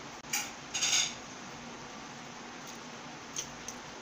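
Two short clatters of a wooden spoon against the food box and plate, the first brief and the second a little longer, about a second in.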